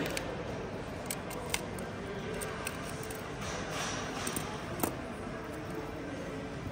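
Small repair tools working on a phone: a few sharp light clicks and a short stretch of scraping, over a steady background hiss.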